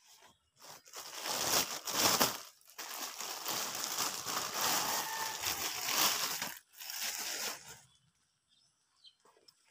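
Thin plastic packaging crinkling and rustling as a boot is unwrapped and pulled out of its plastic bag, stopping about eight seconds in.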